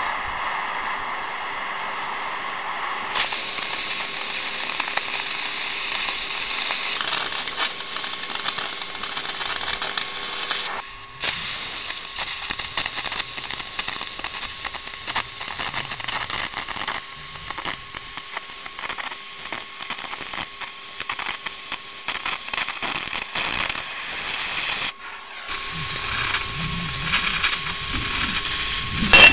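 Oxy-fuel cutting torch hissing steadily as it cuts through a steel I-beam; the hiss jumps much louder about three seconds in as the cutting jet opens up, and drops out briefly twice.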